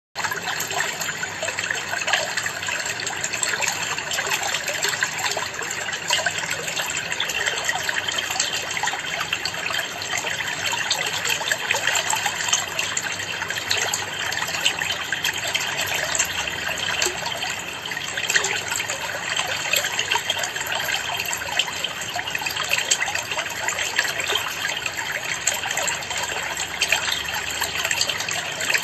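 Water trickling and splashing steadily into a planted aquarium: a constant patter of many small splashes at the surface.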